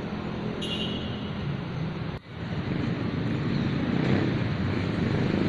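Steady outdoor background noise with a low engine-like hum, typical of vehicle traffic. It breaks off briefly about two seconds in, then swells a little louder.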